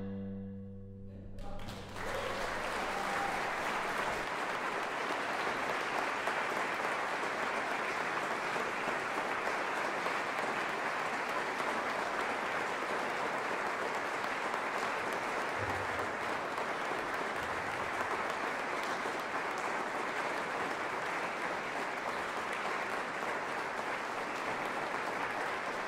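A last low sustained note fades away in the first couple of seconds, then an audience applauds steadily.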